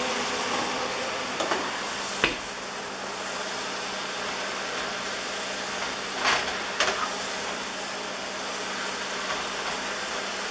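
Sliced mushrooms sizzling in melted butter in a frying pan, a steady hiss, as they are stirred with a spatula. A few knocks of the spatula against the pan, about two seconds in and again about six seconds in.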